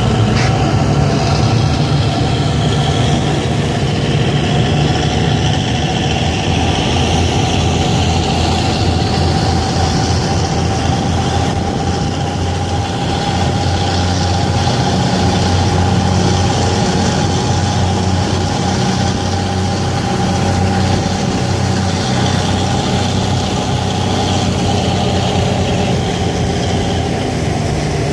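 Diesel engine of a vintage lake ferry running steadily under way, a constant low drone, with the rush of water and wind along the boat beneath it.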